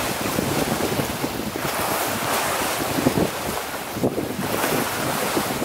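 Wind buffeting the microphone in gusts over the wash of choppy harbour water, with no distinct engine tone.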